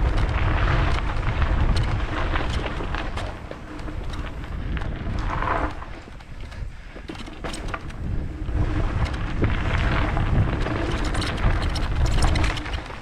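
Mountain bike rolling fast along a dirt trail: wind rumbling on the microphone, with a run of quick rattles and clicks from the bike. The noise eases for a moment just past the middle, then builds again.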